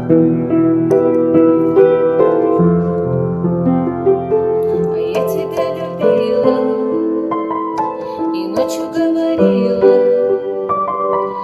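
Slow instrumental passage played on a keyboard with a piano sound: held chords under a simple melody, changing about once a second.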